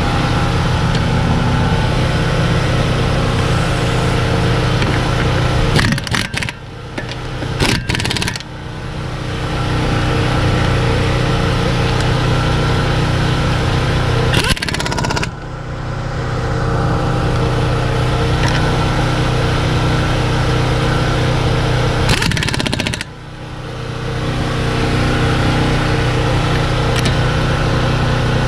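A steady motor hum runs under the whole stretch. It is broken three times by short rattling bursts of a power wrench running the 17 mm lug nuts onto the wheel.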